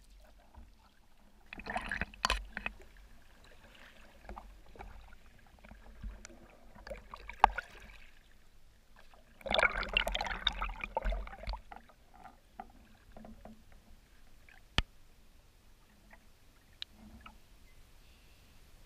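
Solo canoe paddle strokes in river water: two longer bursts of splashing and swirling, about two seconds in and again about ten seconds in, with small drips and splashes between. A single sharp click comes near the fifteenth second.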